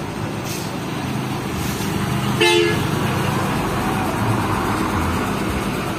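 Diesel dump trucks driving past in convoy, their engines running steadily; a short truck horn blast about two and a half seconds in is the loudest sound.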